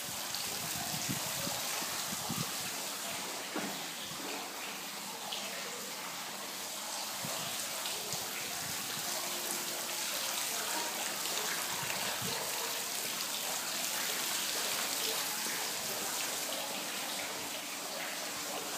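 Water fountain splashing steadily, a continuous hiss of falling water.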